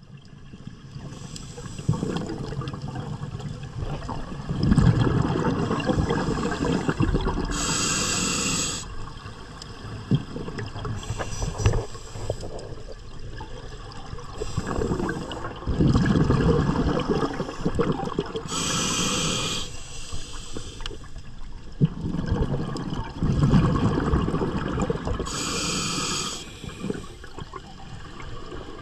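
A scuba diver breathing through a demand regulator underwater: long rumbling rushes of exhaled bubbles, with a short sharp hiss from the regulator on each inhalation, three times.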